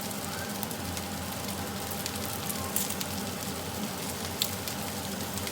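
Fried rice with beef sizzling steadily in a hot pan, with a few light clicks.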